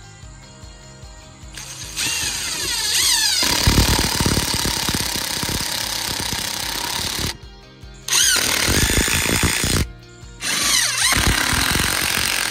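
Ryobi cordless impact driver driving screws through a plastic bracket into a wooden post, in three runs with brief pauses between. The first run starts about two seconds in with a rising and falling motor whine, then the fast rattling hammer of the impacts.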